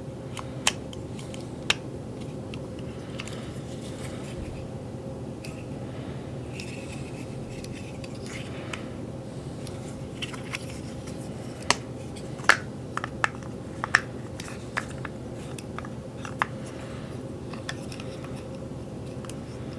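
Scattered sharp clicks and taps of hard plastic toy parts, the seat and canopy of a vintage GI Joe Trouble Bubble flight pod, being handled and pressed together, with a cluster of clicks about two-thirds of the way through, over a steady low hum.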